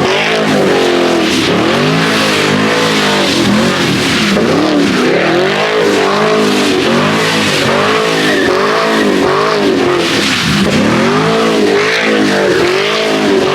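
A car engine revving up and down over and over while the car slides in circles on a wet road, with the hiss of the tyres on the wet surface.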